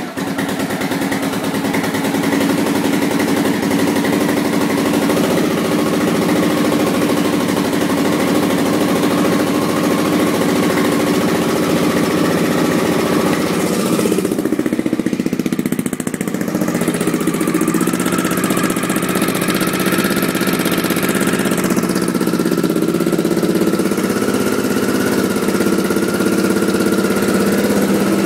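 1986 Honda XL600's single-cylinder four-stroke engine idling steadily. It still makes a noise with new exhaust gaskets fitted, which the owner suspects is an exhaust leak.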